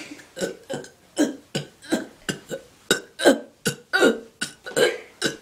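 A person burping over and over, a rapid string of short burps at about three a second.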